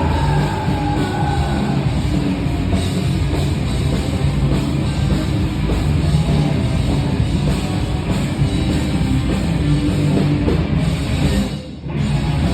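A punk rock band playing loud and fast live, with a drum kit driving under heavy, dense guitar. There is a brief drop near the end.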